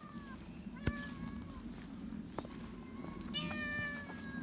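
A white-and-orange cat meowing as it comes up to greet: three calls, a short one at the start, another about a second in, and a longer drawn-out meow near the end. A sharp click comes just before the second meow.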